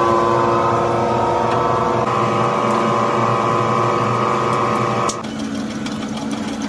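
Rubber-processing machinery running with a steady, droning hum, which changes slightly about two seconds in. About five seconds in it cuts off suddenly and gives way to a quieter, rougher machine noise.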